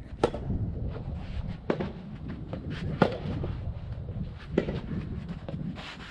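Strong wind buffeting the microphone with a low rumble, over sharp hits of a soft tennis ball struck back and forth by rackets: four loud hits about a second and a half apart, with fainter knocks between.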